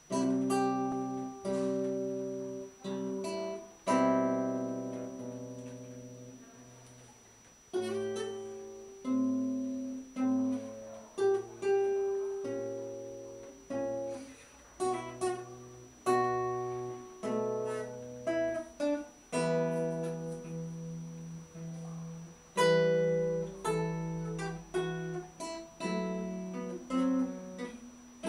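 Solo classical guitar playing a slow adagio: plucked melody notes over chords, each note left to ring and fade. About four seconds in a full chord is struck and allowed to die away for several seconds before the melody picks up again.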